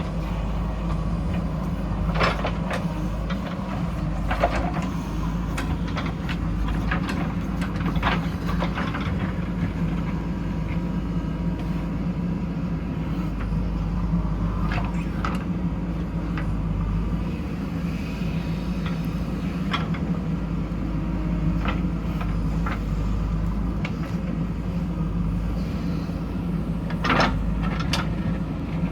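JCB backhoe loader's diesel engine running steadily, with scattered sharp knocks and clanks through it.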